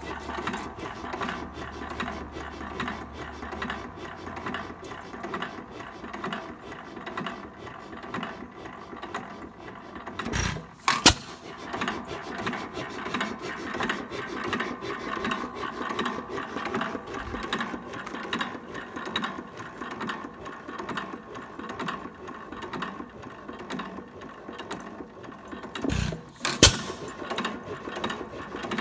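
Hercules 5E five-horsepower hit-and-miss gasoline engine running: a steady, fast clatter of valve gear and governor as it coasts between firings. It fires with a loud, sharp bang about eleven seconds in and again near the end.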